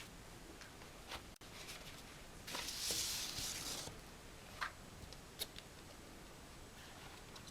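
Vinyl record packaging being handled: a rustle of the sleeve lasting just over a second in the middle, with a few light clicks and taps before and after it.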